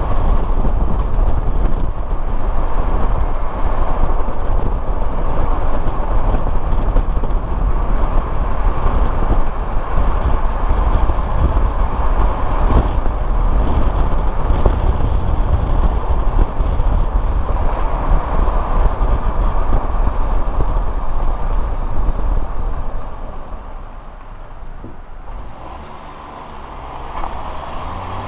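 Suzuki Jimny driving on a mountain road: a steady rumble of road and engine noise. It quietens for a few seconds near the end as the car slows, then builds again.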